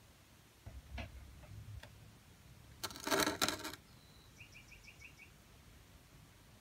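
A drinking glass handled on a tabletop: a few light knocks, then a brief scraping rustle, the loudest sound, just before the hand grips the glass. It is followed by a faint run of about five quick high chirps.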